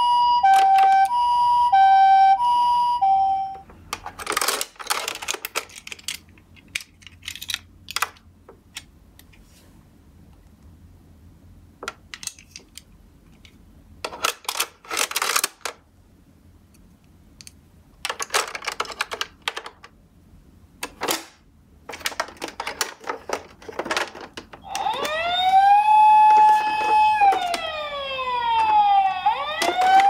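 Toy ambulance's electronic siren sounding the two-tone alternating Japanese ambulance call for the first few seconds, then a stretch of plastic clicks and rattles as the toy is handled and its rear hatch opened. Near the end the siren switches to a rising and falling wail.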